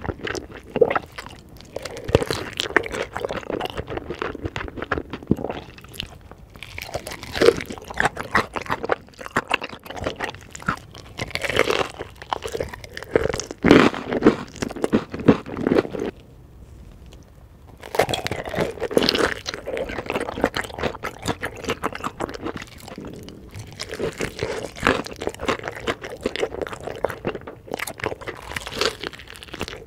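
Close-miked eating of spicy chicken: repeated crunching bites and chewing, with a brief lull a little past the middle.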